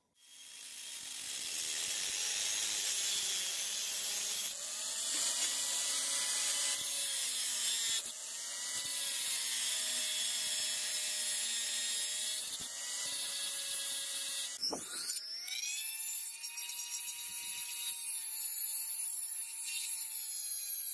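Angle grinder with a cutting disc grinding steel: a steady motor whine under a high hiss of abrasion, the pitch sagging briefly a few times as the disc bites. About three-quarters of the way through, a small rotary tool spins up with a sharp rising whine and runs steadily at a high pitch, its grinding stone working the steel inside the gut hook.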